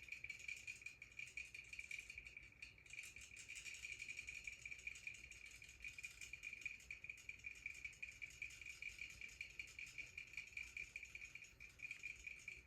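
Faint, steady insect trill, high-pitched and rapidly pulsing, that stops suddenly at the end.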